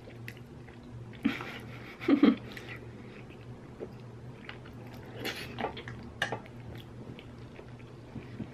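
A person slurping up creamy fettuccine noodles and chewing, in short wet bursts, the loudest about two seconds in. A faint steady low hum runs underneath.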